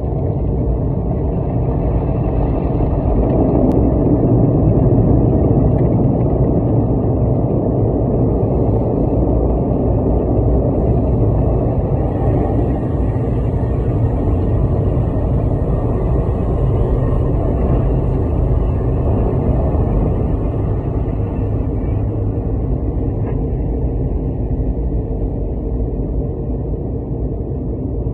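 Automatic car wash heard from inside the car's cabin: water spray and foam hitting the windshield and body make a steady, muffled noise, a little louder a few seconds in.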